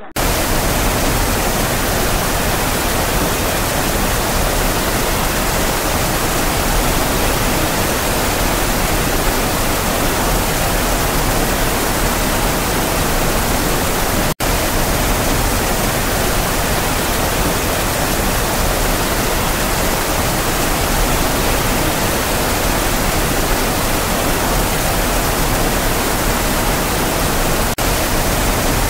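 Steady, loud rush of gushing water, cut off for an instant about halfway through.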